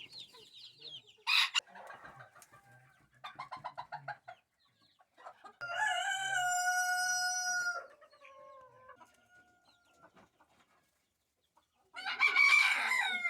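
Chickens and roosters calling: a sharp squawk about a second in, then a quick run of clucks. A long crow of about two seconds follows midway, a fainter crow after it, and another loud call comes near the end.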